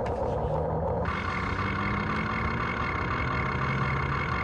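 Radio-controlled excavator and dump truck models running: a steady engine-like hum with a whine over it, shifting higher in tone about a second in.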